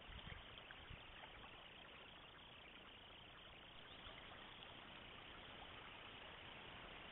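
Faint, steady rush of river water flowing, with a few soft low bumps in the first second.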